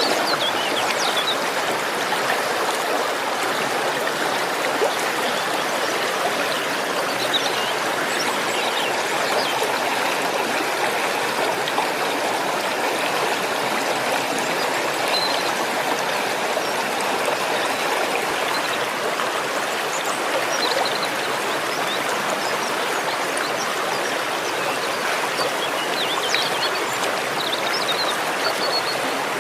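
Waterfall: water falling and rushing in a steady, continuous splash, with a few faint high chirps now and then.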